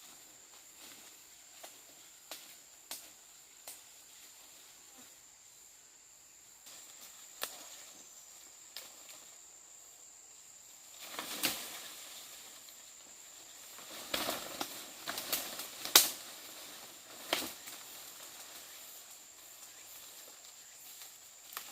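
Rustling and snapping handling sounds with scattered sharp clicks, loudest in a few bursts past the middle, over a steady high-pitched insect drone.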